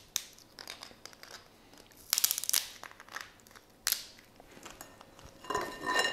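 Blue crab claws being cracked open with a metal hand cracker: sharp snaps and crunching of shell. A cluster of crunches comes about two seconds in, and a single sharp crack near four seconds.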